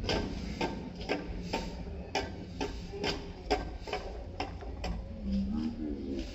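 Hand tools striking and scraping the paving as weeds are cleared from between the stones, a sharp click about twice a second, over a low steady hum. A voice comes in near the end.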